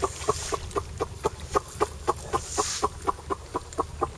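An animal calling in short, evenly spaced notes, about four a second, keeping an even pace throughout.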